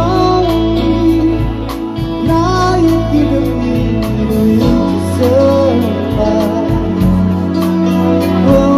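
Live band playing a song: a woman sings the melody over guitar, bass and drums with cymbals.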